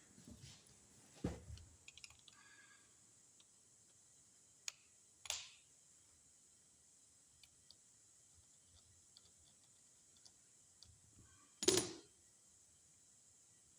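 Sparse small clicks and a few light knocks of hand tools and reel parts being handled on a bench, the loudest clatter near the end.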